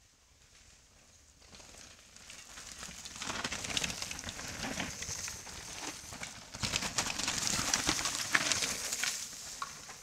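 Mountain bike tyres crunching and crackling through dry leaf litter on a dirt trail, getting louder as the riders come closer, loudest in the last few seconds.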